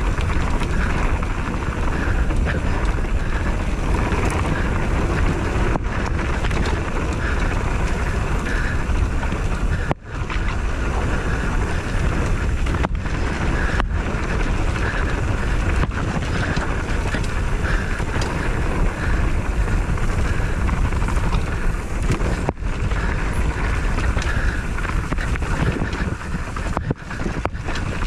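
Steady wind rushing over the microphone, with a running vehicle engine underneath during a ride. The sound dips out briefly about ten seconds in.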